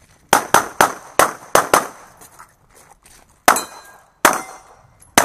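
CZ Shadow 2 pistol firing: six fast shots within about a second and a half, then a pause and three more spaced-out shots.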